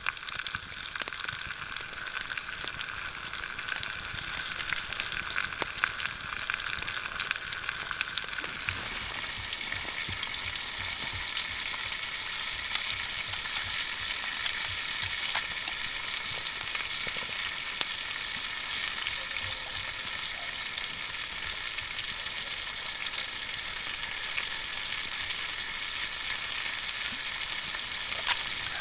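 Two whole fish frying in oil in a skillet over campfire embers: a steady sizzle with fine crackling pops.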